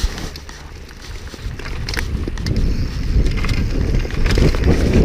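Downhill mountain bike riding over rough dirt trail: tyre noise and the bike clattering, with many sharp knocks over a low rumble, growing louder as speed builds.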